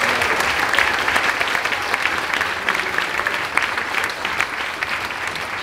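Audience applauding, many hands clapping together, easing off slightly toward the end.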